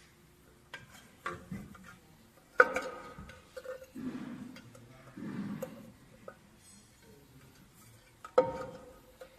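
Metal parts knocking and clinking as they are handled and fitted, several sharp knocks with a short metallic ring. The loudest comes about two and a half seconds in and another near the end, with two duller scraping sounds in between.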